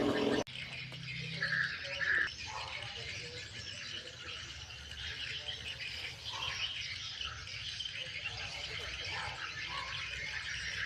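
A running chainsaw cuts off abruptly just after the start. Outdoor ambience follows, with a steady high hiss and a few short bird squawks.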